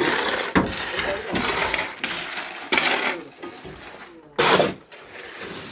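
Indistinct voices mixed with intermittent rough scraping and clinking bursts from concrete work.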